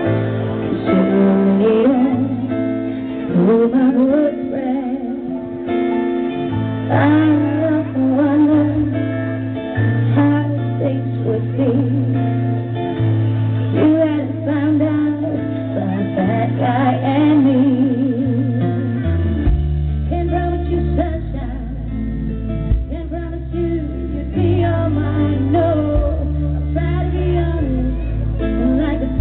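Live music: a woman singing into a microphone over acoustic guitar, with sustained bass notes that step down to a lower register about two-thirds of the way through.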